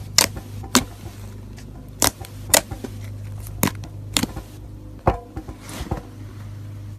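Crunchy slime being squeezed and pressed, giving sharp, irregular crackles and crunches, about eight in all, over a steady low hum.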